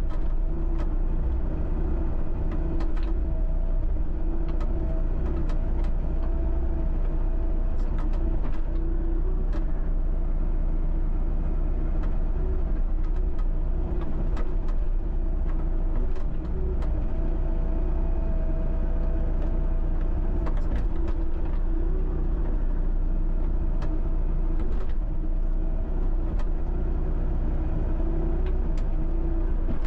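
John Deere 60D mini excavator's diesel engine running steadily while it works, with scattered sharp clicks and knocks from the bucket and stumps.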